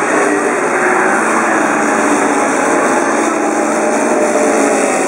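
Honda GX31 31 cc single-cylinder four-stroke petrol engine of a 1:6 scale Stuart tank model, running steadily as the model drives, its pitch drifting slightly.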